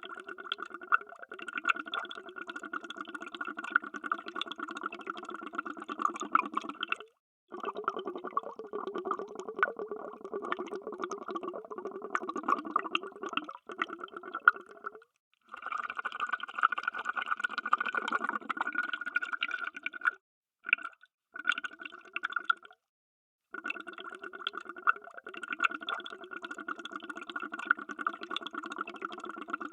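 Underwater bubbles streaming and gurgling in long stretches, cut by several short, sudden silences.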